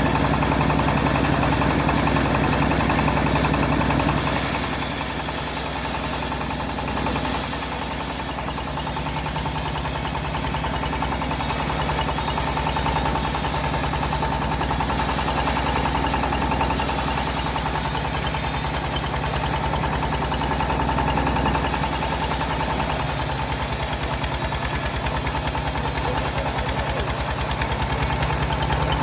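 Homemade bandsaw driven by an engine, running steadily. From about four seconds in, the hiss of the blade cutting trembesi wood comes and goes over the engine.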